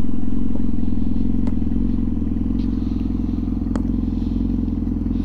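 Sport motorcycle engine idling steadily, with two faint clicks along the way.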